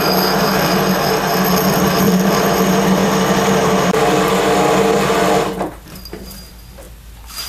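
Bridgeport milling machine driving a 2-inch annular cutter through thick steel plate under heavy load: a steady machine drone with a high whine over the cutting noise. It cuts off about five and a half seconds in, when the mill's drive trips out on over-torque.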